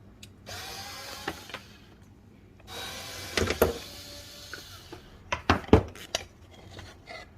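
Hand work on a player-piano stack: two stretches of rubbing and scraping, then a run of sharp clicks and knocks of tools and parts handled at the bench, the loudest about six seconds in.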